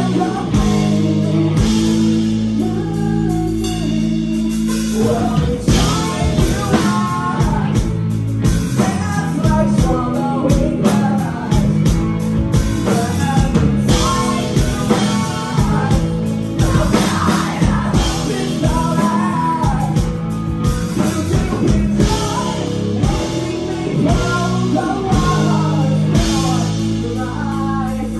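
Live rock band playing: a lead singer over electric guitars, bass and drums.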